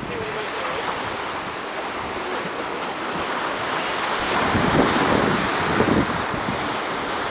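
Wind buffeting the microphone over the rush and splash of open-ocean water along a sailing yacht's hull, growing louder about halfway through.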